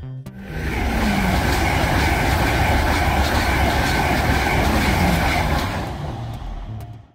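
LNER Class 801 Azuma electric train passing at speed, a loud steady rush of wheel and air noise. It builds about half a second in and fades over the last second or so as the last carriage goes by.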